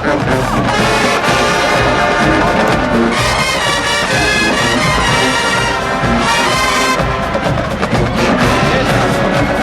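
HBCU marching band playing loudly: a full brass section of trumpets and trombones over a steady drumline.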